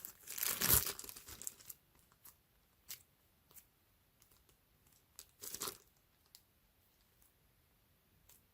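Plastic packaging crinkling and rustling as it is handled: a longer rustle in the first second or two, a shorter one after about five seconds, and a few faint ticks between.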